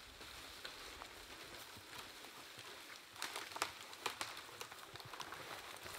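Footsteps crunching through crusty snow and dry brush, a scatter of faint crackles and ticks that grows busier about three seconds in.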